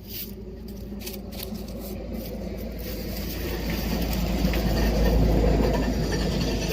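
A road vehicle going past, its low rumble growing louder to a peak about five seconds in, then easing.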